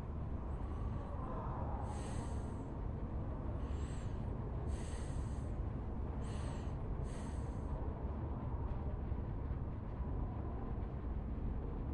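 Steady low rumble of a library ambience soundscape, with six short, soft, hissy rustles between about two and eight seconds in.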